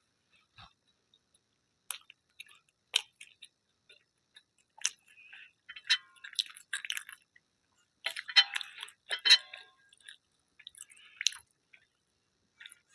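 Close-up mouth sounds of a person chewing food, wet and clicky, in irregular bursts that grow busier and louder toward the middle.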